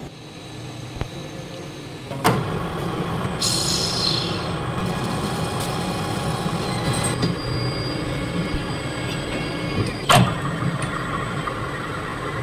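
Metal lathe running with the steady hum of its motor and gearing while turning a small brass part. Two sharp clicks stand out, about two seconds in and again near ten seconds, with a brief hiss between them.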